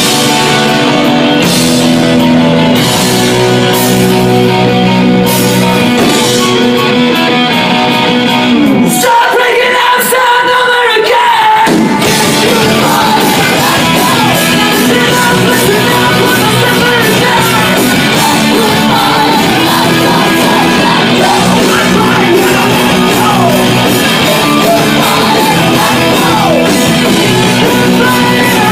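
Live rock band playing loud: electric guitars, bass and drums with a singer shouting and singing. About nine seconds in the bass and drums drop out for a few seconds, leaving a guitar and voice, then the full band comes back in.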